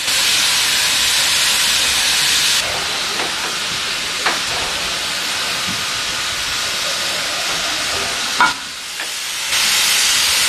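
Steam locomotive venting steam with a loud, steady hiss. The hiss is harsher for the first couple of seconds and again near the end, with two short knocks in between.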